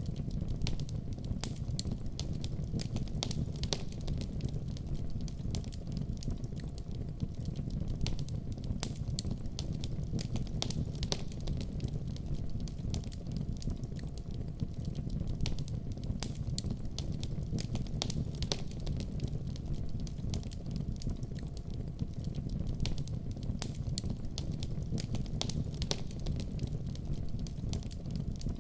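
Fireplace fire crackling, with frequent sharp pops over the steady low rush of the flames.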